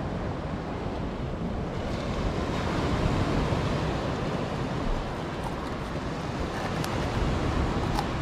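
Steady rush of surf breaking on a beach, with wind, and a few faint clicks in the second half.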